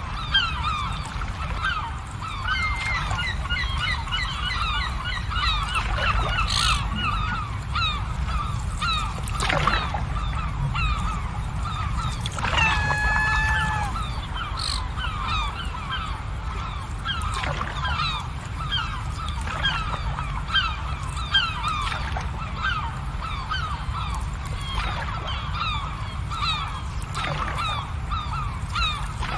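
A flock of birds calling continuously, many short calls overlapping, over a steady low rumble; one longer drawn-out call stands out about halfway through.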